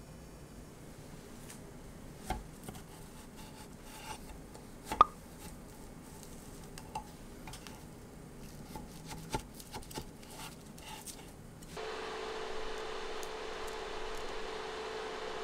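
Kitchen knife cutting a peeled banana on a wooden cutting board: scattered soft knocks and taps, with one sharper knock about five seconds in. About twelve seconds in, a steady hiss with a hum sets in from the electric hob under the pan.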